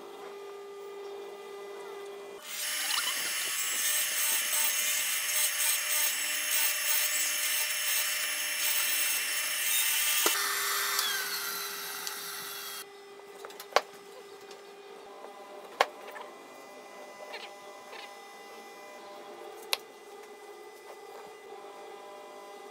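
Benchtop hollow-chisel mortising machine switched on about two seconds in, cutting a square pin hole through a mitered wooden corner for about eight seconds, then its motor winding down with a falling pitch after it is switched off. A few sharp clicks follow later.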